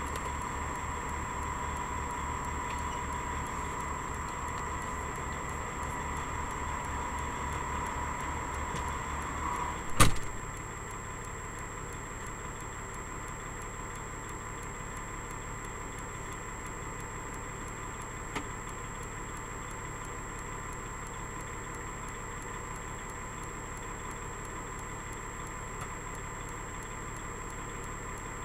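Kenworth truck's diesel engine idling with a steady low pulsing. About ten seconds in there is a single sharp knock, and after it the sound settles to a quieter steady hum.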